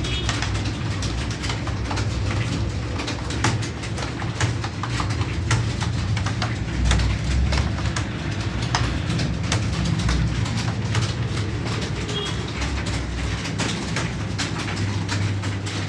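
Computer keyboard typing: rapid, irregular key clicks over a steady low hum.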